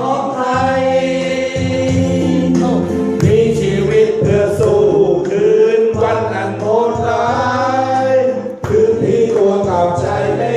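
A Thai song playing, with a voice singing a held, wavering melody over bass and backing accompaniment.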